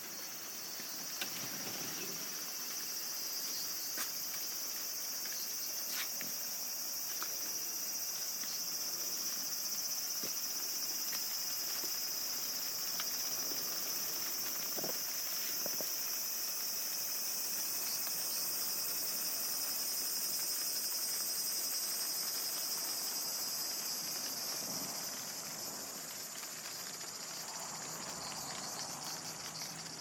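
A steady, high-pitched chorus of insects, dense and unbroken, with a few faint clicks scattered through it.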